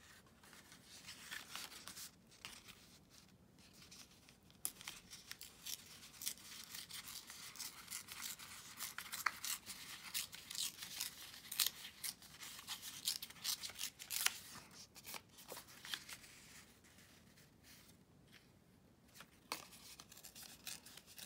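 Scissors snipping through paper in a long run of irregular cuts, with crisp rustling of the sheet as it is handled. The cuts thin out for a moment near the end, then a few more follow.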